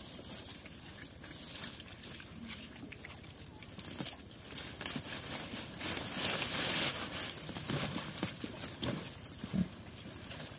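Small pigs feeding on fresh banana leaves: chewing and tearing at the leaves with wet crunching and crackling and leaf rustle, loudest about six to seven seconds in, with a short low grunt near the end.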